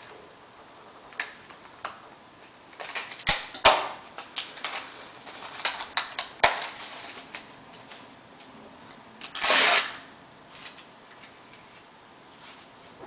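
Trading cards being handled: scattered sharp clicks and taps, clustered in the middle, with one brief scraping rustle a little before ten seconds in.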